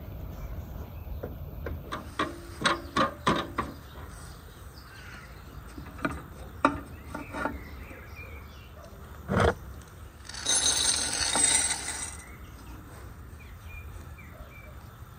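Several sharp knocks and clinks as a glass bowl and wooden sticks are set on an aluminium pot. About ten seconds in comes a two-second rattling pour of chocolate chunks into the glass bowl.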